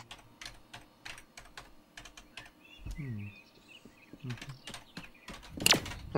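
Typing on a computer keyboard: quick, irregular key clicks. Near the end there is a single loud, sudden burst of noise.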